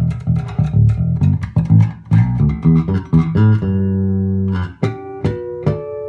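Yamaha TRB5II five-string electric bass played fingerstyle with both pickups on. It plays a run of quick plucked notes, then a held low note, then a few higher ringing notes near the end.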